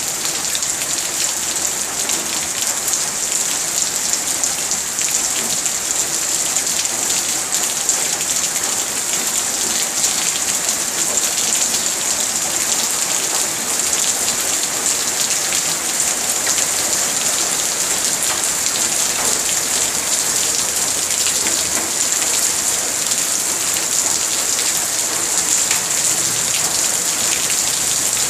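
Steady rain falling, an even hiss with many fine drop taps, unchanging in strength.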